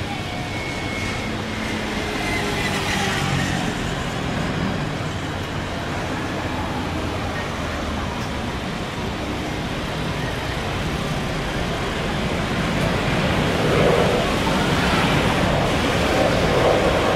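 Airbus A350's Rolls-Royce Trent XWB jet engines as the airliner rolls along the runway: a steady rushing noise that grows louder in the last few seconds.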